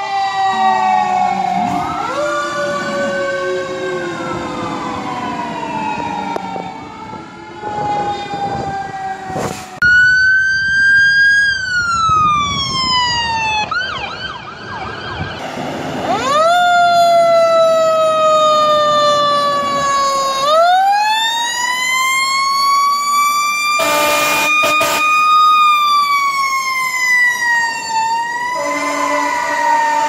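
Fire apparatus sirens: electronic wails sweeping up and down, and a mechanical Federal Q siren winding up to a high scream, holding, then winding down. Air horn blasts sound about three-quarters of the way through and again near the end. The sounds come in short clips with sudden cuts between them.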